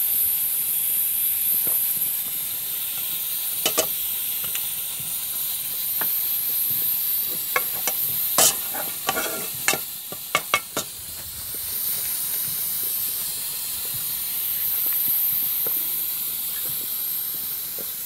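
Garlic sizzling in hot pork lard in an aluminium pot, with a steady frying hiss. A wooden spatula stirs it and knocks against the pot a few times around the middle.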